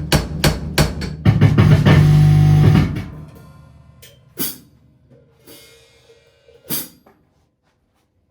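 Drum kit played in a short burst: four quick strikes, then a dense loud run of drum and cymbal hits for about two seconds that rings away, followed by three separate hits spread over the next few seconds.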